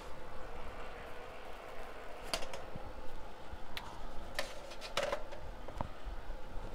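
A few scattered light clicks and knocks of handling as the flexible aluminium exhaust duct is taken off the coffee roaster's exhaust fan outlet.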